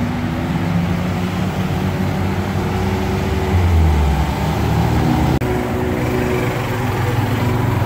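Road traffic engines running steadily on a flooded road, with a heavier, lower engine rumble growing louder about four seconds in. A click a little after five seconds marks a sudden break in the sound.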